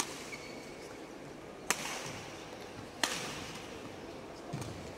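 Badminton rackets striking a shuttlecock during a rally: three sharp cracks about one and a half seconds apart, each ringing briefly in the hall, with a dull thud near the end.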